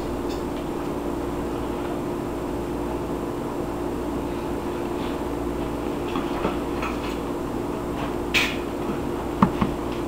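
Microwave oven running on high with a .22 rimfire cartridge inside, a steady electrical hum. A few sharp clicks and a brief crackle come in the last few seconds.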